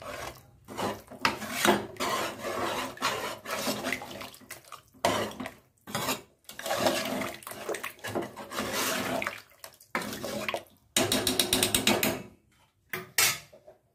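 Metal ladle stirring thick sambar in a large metal pot: repeated scrapes and clinks of the ladle against the pot with the liquid sloshing, coming in spurts with short pauses.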